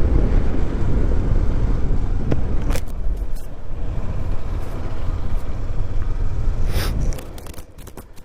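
Motorcycle riding on a rough mountain road: a loud, steady low rumble of wind and engine noise on the microphone, with a few sharp knocks. The rumble drops away sharply about seven seconds in.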